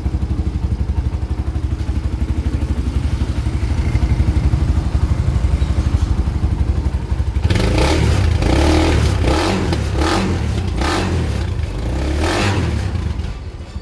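Kawasaki Barako II's single-cylinder two-stroke engine idling just after a cold start, its hard-starting fault cured, then revved in several short blips about halfway through before dropping back.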